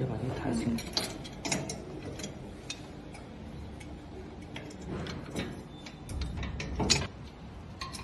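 Irregular metal clicks and rattles of a coil tension spring being hooked onto the frame of a cable pulling machine, with a few louder knocks among them.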